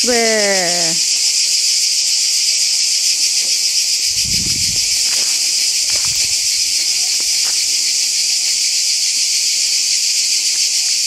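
Loud, unbroken chorus of cicadas in the trees, a dense high-pitched buzz.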